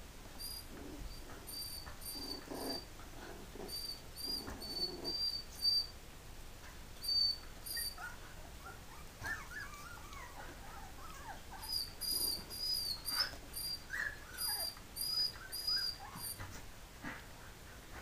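Three-week-old Pumi puppies squeaking and whining as they wrestle. There are runs of short, high-pitched squeaks in the first half and again after about twelve seconds, with wavering whines in between.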